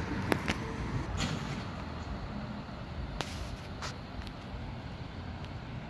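Steady low rumble of street traffic, with a handful of sharp clicks scattered through: two in the first second, then more around three to four seconds in.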